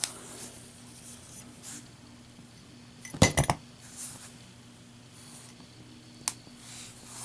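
Steel Zippo lighter undergoing a drop test: a cluster of metallic clacks about three seconds in, with single sharp clicks at the start and about six seconds in. A steady low hum from an overhead fan runs underneath.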